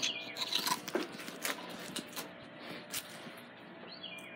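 Scattered light clicks and knocks of plastic Hot Wheels track pieces being handled and fitted together.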